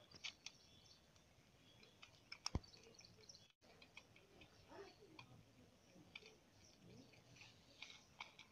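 Near silence, with faint small clicks from a wire being fitted onto a parking-bulb holder in a metal headlight bowl; one sharper click about two and a half seconds in.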